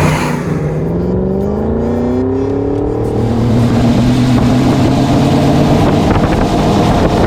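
GM LT1 V8 in a Land Rover Defender 90 pulling under acceleration: the engine note drops at the start as the automatic shifts up, climbs steadily for about three seconds, then holds at a steady pitch.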